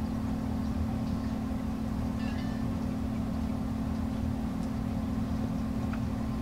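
A steady low hum from a running motor or appliance, with a few faint ticks over it.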